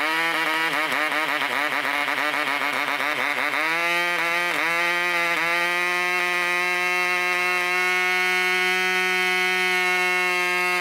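1965 Mikro 3.5cc model diesel engine running flat out at about 11,000 rpm on a 9x4 propeller, a high-pitched whine. Its speed wavers quickly for the first few seconds and dips sharply twice as the compression adjuster is worked, then it settles into a steady run.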